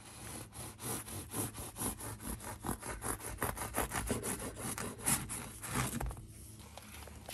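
Serrated bread knife sawing back and forth through a freshly baked white loaf on a wooden cutting board: a quick run of rasping strokes, several a second, that stops about six seconds in.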